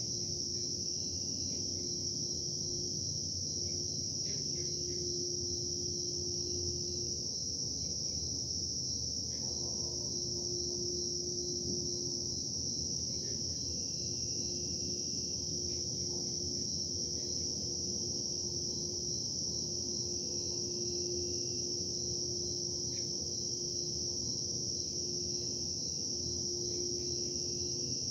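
Industrial machinery noise: a low rumble and a hum that drops out and returns every few seconds, under a steady, high-pitched chirring drone.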